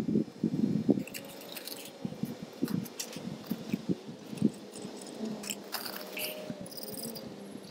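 Pea gravel crunching under a kneeling person shifting his weight, loudest in the first second, then scattered small clicks and scrapes of PVC pipe fittings and primer and cement cans being handled while the fittings are primed and glued.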